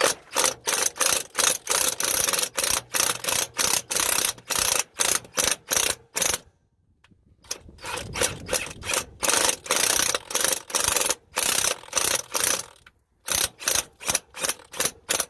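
Hand ratchet clicking in quick, even strokes, about three a second, as a broken bolt is worked out with a nut welded onto it. The strokes pause for about a second midway and start again.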